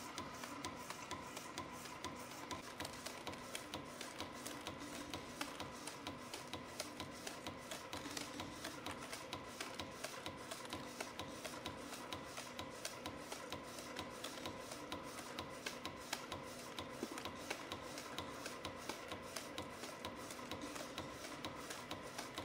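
CNC spring coiling machine forming 0.6 mm wire compression springs at about 120 a minute: a rapid, regular clicking from the feed, coiling and cut-off tooling over a steady machine whine.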